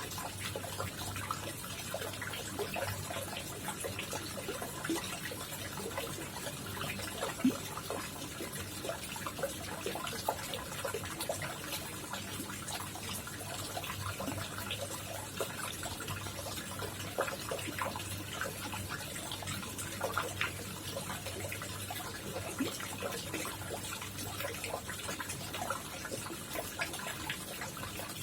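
Koi pond water trickling and splashing steadily, with many small irregular drips and plops, over a faint low hum.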